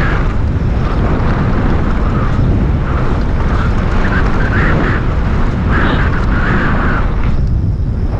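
Wind buffeting an action camera's microphone while a mountain bike rolls down a rough trail: a loud, steady rumble with hiss over it.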